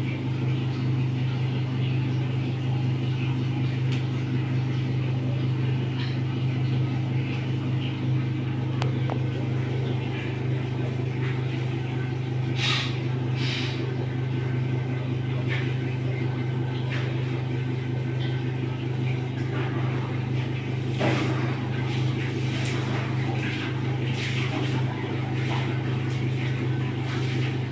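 A steady low mechanical hum that holds the same pitch and level throughout, with a few short faint clicks over it about halfway through and again near the end.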